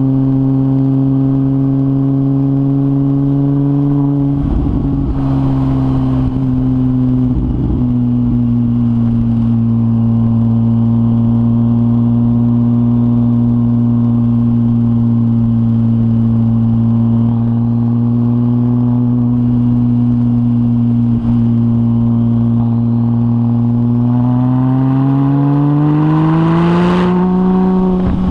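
2004 Porsche 996 Turbo's twin-turbo flat-six running through a decat Kline 70mm stainless X exhaust at a steady engine speed, then climbing in pitch about three-quarters of the way through and holding the higher note. Brief rushing noises come over it once early on and again near the end.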